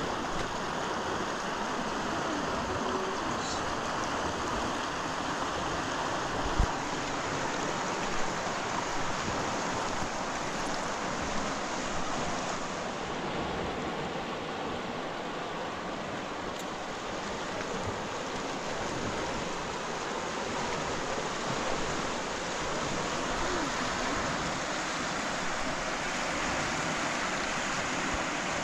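Steady rush of running or lapping water, with a couple of brief sharp knocks about six and eight seconds in.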